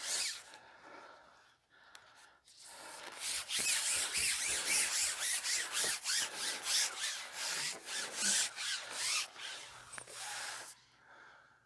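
A fishing pole being slid out by hand over the water, making a run of quick rubbing, scraping strokes, several a second, which starts a few seconds in and stops near the end.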